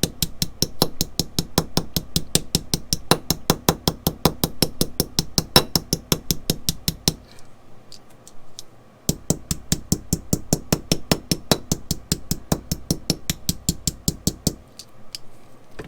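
Small ball-peen jeweler's hammer tapping lightly and rapidly around the outer edge of a domed copper rivet head, peening the edge down into the leather, about five or six taps a second. The tapping pauses about halfway through, then resumes.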